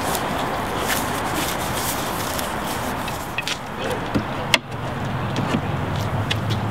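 Camera gear being handled at an open van: a few sharp knocks and rubbing of wooden poles and equipment over steady outdoor background noise. A low vehicle engine hum comes in near the end.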